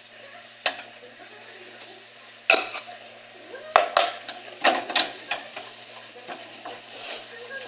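Sugar and oligosaccharide syrup being stirred in a frying pan as the sugar melts, the utensil scraping and clinking against the pan in a series of sharp knocks, the loudest about two and a half and four seconds in.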